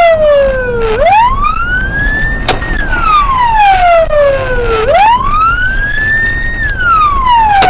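Police car siren in a slow wail: each cycle rises over about two seconds, holds briefly at the top, then falls, about four seconds per cycle. A steady low engine and road rumble runs underneath, with one sharp click about two and a half seconds in.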